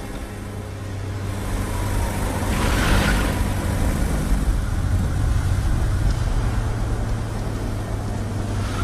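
Car engine running and road noise while driving, a steady low hum under a rushing of wind and tyres. About three seconds in, a louder rushing swell comes and goes.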